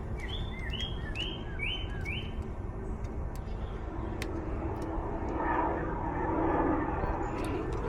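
A small bird chirps a quick run of about five short rising notes in the first two seconds over a steady outdoor rumble. The rumble swells between about five and seven seconds in.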